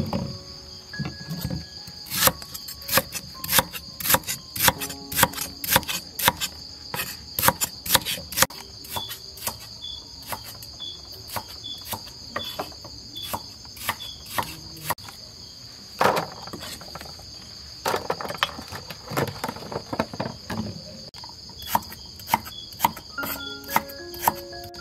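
Knife chopping peeled arrowroot tubers on a wooden chopping block: sharp chops in a quick run of about three a second, then slower and more spaced. A steady insect chorus goes on underneath.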